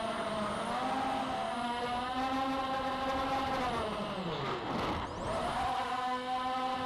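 Emax NightHawk 250 racing quadcopter's brushless motors and propellers whining steadily in flight. About four and a half seconds in, the pitch dives sharply as the throttle is cut, then climbs back.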